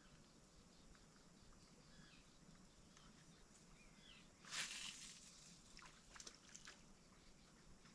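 Quiet outdoor ambience with a few faint bird chirps. About halfway through there is a brief rustling burst of noise, followed by a few faint clicks.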